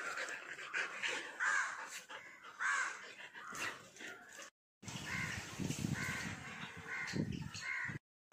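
Crows cawing again and again in short, harsh calls, with the sound cutting out briefly about halfway through.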